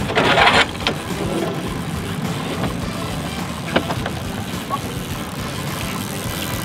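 Outboard motor running steadily at trolling speed, a low even hum. A loud brief rush of noise in the first half-second and a sharp click about four seconds in.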